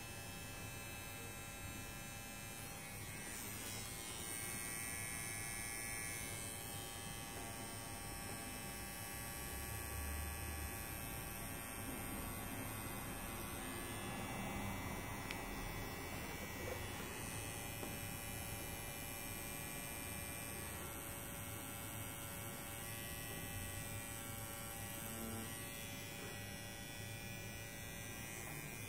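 Permanent-makeup tattoo pen buzzing steadily as its needle works pigment into eyebrow skin.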